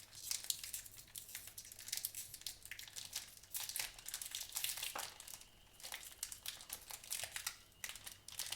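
Crinkling and rustling from handling trading card packs and cards: foil wrappers crumpled and cards shuffled, in a dense run of small crackles.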